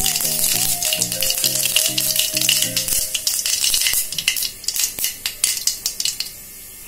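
Mustard seeds popping and crackling in hot oil in an aluminium kadai during tempering. Background music plays over the first half and fades out about three seconds in, and the pops thin out near the end.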